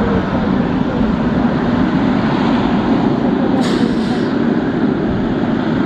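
Boeing 777 Freighter taxiing past, its GE90 turbofan engines running at low taxi power in a steady jet rumble. A short hiss comes a little past halfway through.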